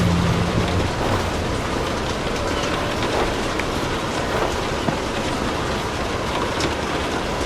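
Steady rain with scattered sharp crackles from a fireplace fire. A low hum fades out about a second in.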